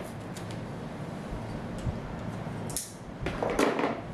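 Rustling of hair and clothing as hands lift and gather long hair up onto the head, loudest near the end, over a steady low hum.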